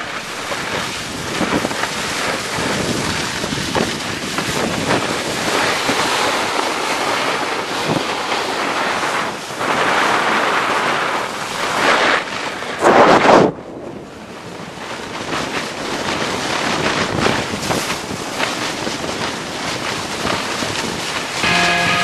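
Wind rushing over the microphone of a camera carried down a snowy slope on a snowboard, a loud steady rush with stronger gusts around the middle and a sudden brief drop soon after.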